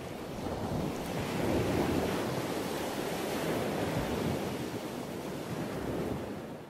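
Ocean surf washing on a shore, a steady rush that swells and eases every couple of seconds and fades out at the end.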